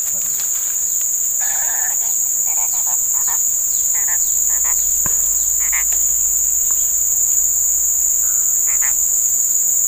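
Steady, high-pitched drone of an insect chorus, with short scattered calls sounding over it now and then.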